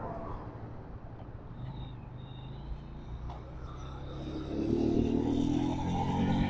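Road traffic: a vehicle engine running steadily, with one vehicle growing louder from about four and a half seconds in as it passes close.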